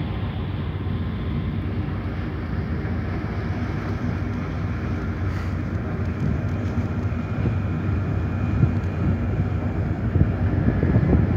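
Passenger ferry's engines droning steadily as the ship manoeuvres close to shore, a low rumble with faint steady tones above it. Wind gusts on the microphone, stronger near the end.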